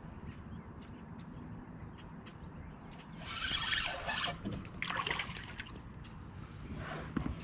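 Water splashing in two short bursts, about three and five seconds in, over a faint low rumble and a few small clicks.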